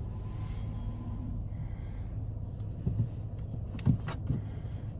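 Car engine running, heard from inside the cabin as a steady low hum, with a few sharp knocks about three and four seconds in.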